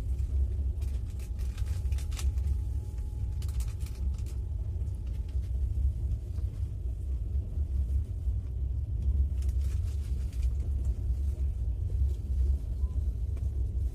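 Steady low rumble of a passenger train in motion, with a few faint rattles and clicks.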